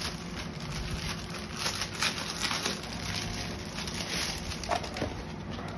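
Soft rustling and light handling noise of a fabric frock being lifted and spread out by hand, with scattered small clicks.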